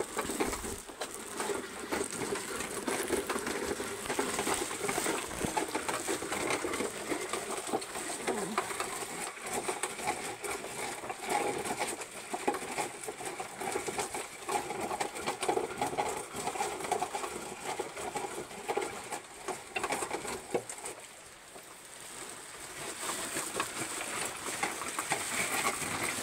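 Hand-cranked coffee pulper churning fresh coffee cherries: a continuous rattling and grinding as the cherries are pulped and the crank wheel turns. The sound eases off briefly about two-thirds of the way through, then picks up again.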